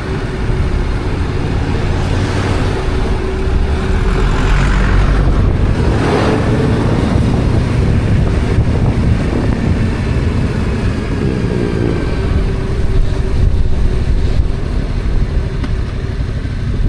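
Stock Yamaha XSR700's parallel-twin engine running on a ride, with a few broad rushes of noise over it.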